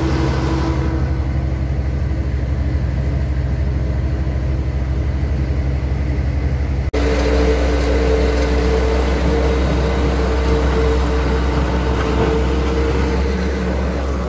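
MAZ timber truck's diesel engine pulling at low speed through deep mud. The engine runs steadily, with a brief dropout about seven seconds in, after which the engine note changes and two steady higher tones join it.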